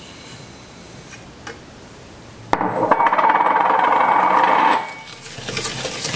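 A coil (spiral) whisk rattling and scraping fast against a stainless steel saucepan as sugar is whisked into a butter, flour and water paste: it starts abruptly about two and a half seconds in and is loud for about two seconds, then breaks off briefly and resumes as slower stirring near the end.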